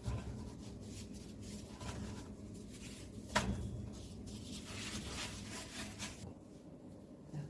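A knife cutting thin pre-cooked samosa pastry sheets on a board, a soft scraping and rubbing with small clicks. There is one sharp knock about three and a half seconds in.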